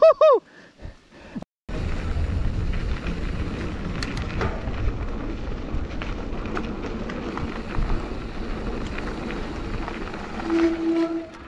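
Mountain bike running down a dirt trail: a steady rumble of tyres and wind on the camera microphone, with small rattles and knocks. At the very start there is a brief loud rising-and-falling tone, then about a second of dropout. Near the end there is a short steady tone.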